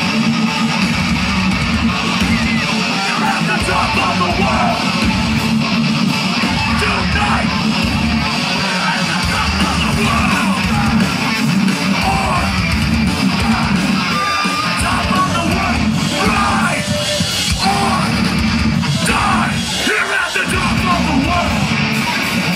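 A rock band playing live: distorted electric guitars, bass and drums, loud and continuous, with shouting over the music.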